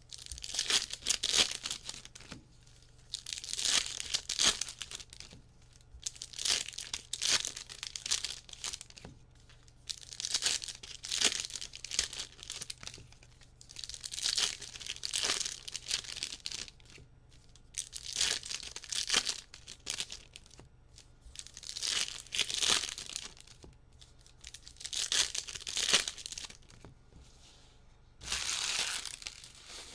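Trading-card pack wrappers being torn open and crinkled, in about nine separate bursts every three to four seconds, as a mega box's packs are opened one after another.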